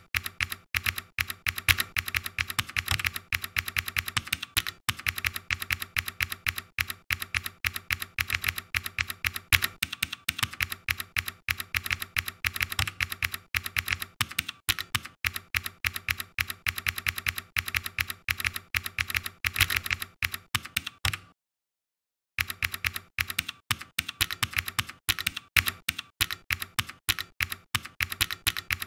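Rapid typing on a computer keyboard, a fast, steady run of keystrokes. It stops dead for about a second a little past two-thirds of the way through, then carries on.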